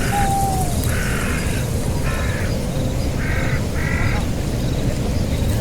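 An unseen animal gives a series of short, harsh, rasping calls, about one a second, over a steady low rumble.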